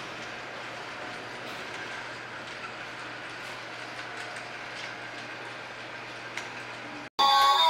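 Battery-powered toy train ornament running on its track around a Christmas tree: a steady mechanical whirring with faint ticks from its small motor and wheels. Loud music cuts in abruptly near the end.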